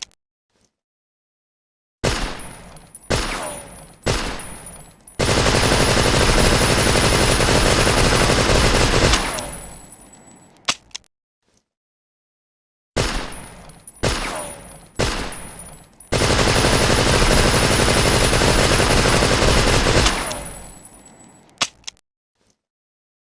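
Thompson submachine gun (Tommy gun) firing. Three short bursts about a second apart are followed by about four seconds of continuous rapid fire that dies away. The whole sequence plays twice, each time ending with a single click.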